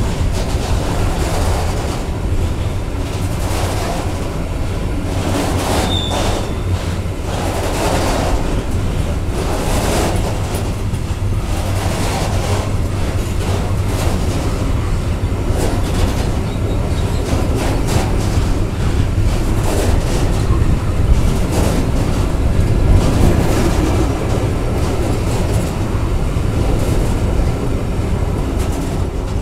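Loaded Falns iron ore hopper wagons of a freight train rolling past close by: a steady heavy rumble with regular clacks of the wheelsets over rail joints, and a short wheel squeal about six seconds in.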